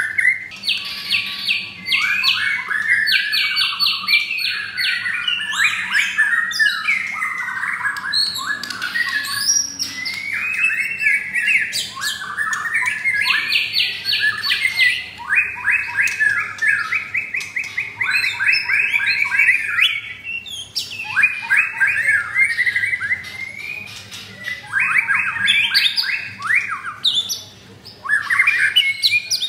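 White-rumped shama (murai batu) singing a long, varied song of fast trills, rattling runs and sliding whistles, in phrases broken by short pauses.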